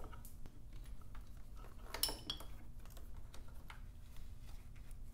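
Light metallic clicks and clinks of hands handling tools and wiring on a motorcycle frame, with a sharper cluster of clinks about two seconds in, over a faint steady hum.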